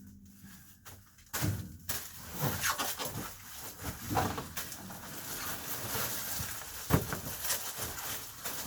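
Crinkling and crackling of Reflectix foil-bubble insulation being handled and unrolled, with a couple of sharp knocks, about a second and a half in and again near seven seconds.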